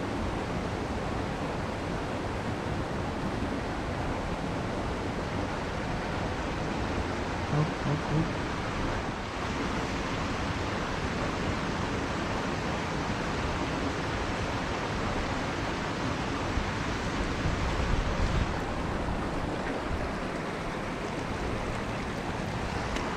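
Steady rushing of flowing river water, with a couple of brief low bumps about a third of the way in and again later.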